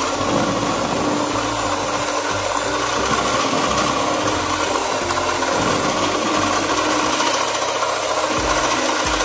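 Electric hand mixer running steadily, its beaters churning a mix of yogurt, vanilla ice cream and pomegranate seeds in a tub.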